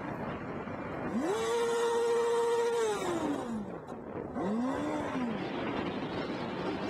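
Motorbike engine revving over steady wind and road hiss. About a second in its pitch climbs, holds level for a second or two, then falls away. A second, shorter rise and fall follows about four and a half seconds in.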